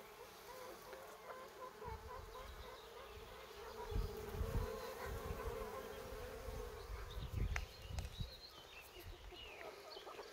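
Many honeybees buzzing in flight around a feeding spot: a faint, steady hum whose pitch wavers slightly as bees pass, with a few low thumps partway through.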